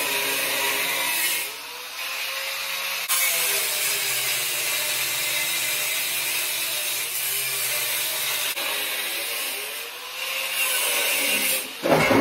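Handheld angle grinder with a cut-off wheel cutting through the steel tubes of a 1987 Harley-Davidson Softail frame, its whine sagging and recovering in pitch as the disc bites into the metal and eases off. The cutting lets up briefly a couple of times and stops near the end.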